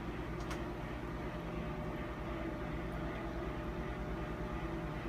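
Siemens E.CAM gamma camera's motorised gantry running with a steady hum as the detector heads drive out to the collimator-change position, with a faint click about half a second in.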